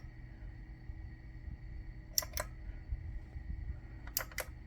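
Line 6 POD Go footswitch pressed twice, about two seconds apart, each press a quick double click, toggling an effect on and off. The footswitch responds to every press now that its tactile switch has been replaced.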